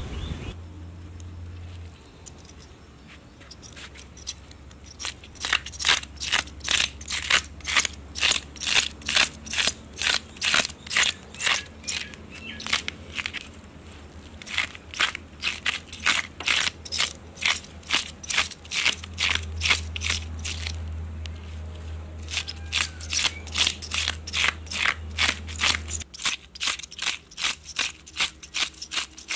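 A handheld fish scaler scraping the scales off a large whole fish in quick, rhythmic strokes of about two or three a second. The strokes start a few seconds in and pause briefly about two thirds of the way through.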